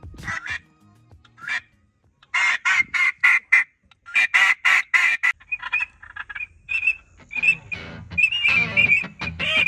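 Duck quacks in two quick runs of about half a dozen each, then a string of short, high whistled notes.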